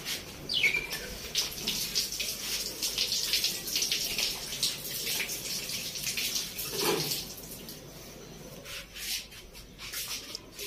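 Water running and splashing from a tap under a wash basin.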